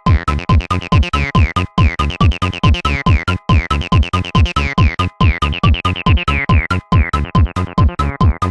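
Acidcore electronic dance track: fast, hard kick drums about four a second, each dropping in pitch, under synthesizer stabs. The beat cuts out for an instant about every second and a half.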